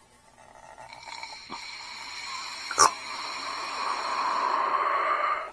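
Air hissing as suction is drawn on the vacuum port of a supercharger blowoff (bypass) valve to find its opening point. The hiss builds steadily over several seconds and cuts off near the end.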